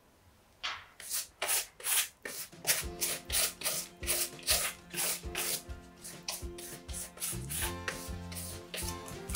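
Pastry brush swept back and forth over the crisp, browned crust of a pan-fried bread, spreading melted butter. It makes a run of short swishing strokes, about three a second, starting under a second in.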